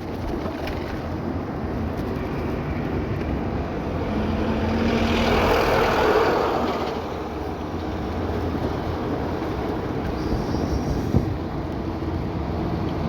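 Street traffic: a steady vehicle engine drone, with a louder vehicle swelling past about five to six seconds in.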